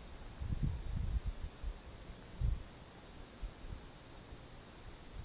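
Steady high-pitched drone of an insect chorus from the trees, with a few low bumps of wind on the microphone.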